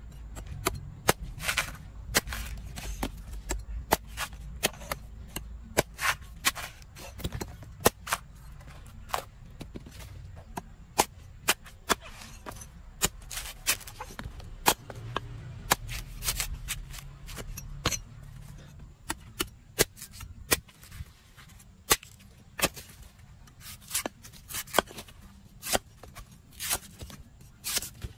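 A cleaver chopping into the husk of a fresh green king coconut against a wooden stump: a long run of sharp, irregular chops, about one or two a second.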